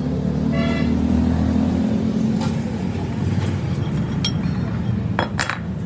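A steady low mechanical hum. A brief high tone sounds about half a second in, and a few sharp clicks come near the end.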